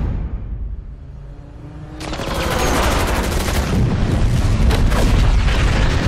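Action-film sound effects: a low rumble, then from about two seconds in a loud, dense barrage of gunfire and explosions, with music underneath.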